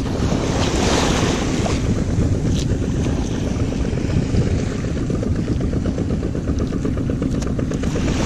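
Wind buffeting the microphone over waves washing across a sloping concrete seawall: a steady, rough rush with a few faint clicks.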